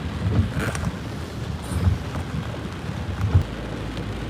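Heavy rainstorm: steady rain hiss with wind buffeting the microphone in irregular low gusts, the strongest about two seconds in and near the end.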